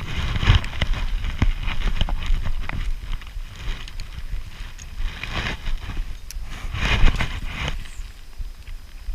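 Irregular clicks and knocks over a steady low rumble, with louder noisy stretches about half a second in, around the middle and again about two seconds before the end.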